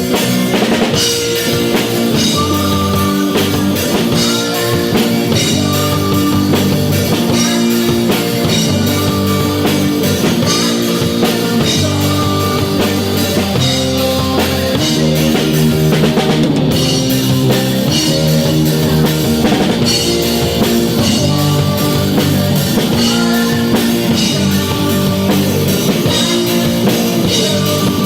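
Rock music played by a band: drum kit and guitar, steady and loud throughout.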